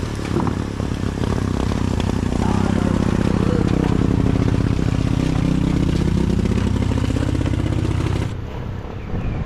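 Small motorcycle engine running, its pitch rising and falling, then dropping away sharply near the end.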